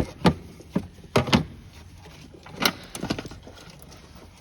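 A series of irregular sharp clicks and knocks as plastic clips and trim parts under a car's hood are pried loose and handled. The loudest come in the first second and a half and again near three seconds.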